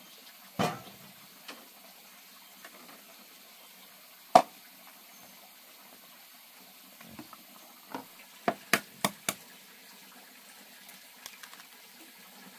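Kitchen handling sounds over a faint steady hiss: a knock about half a second in, a sharp click around four seconds, and a quick run of four taps near the end of the first ten seconds, as plastic bowls and eggs are handled at a wooden table.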